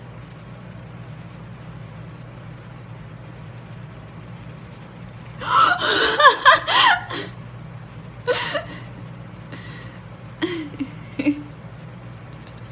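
Cat meowing: a run of loud calls that bend in pitch about halfway through, then a few shorter sounds, over a steady low hum.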